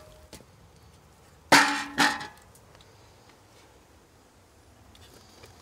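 Two sharp metallic clangs about half a second apart, each ringing briefly, from sheet-metal electrical meter base enclosures being handled and knocked together.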